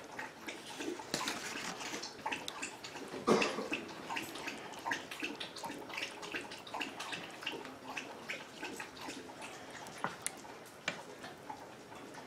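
A plastic spoon stirring thick cheese soup in a stainless steel pressure-cooker pot: wet sloshing with uneven scrapes and taps against the pot, and one louder knock about three seconds in.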